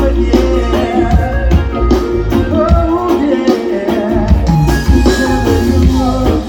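Live band playing through a stage PA: a singer over heavy bass, drums and guitar with a steady beat.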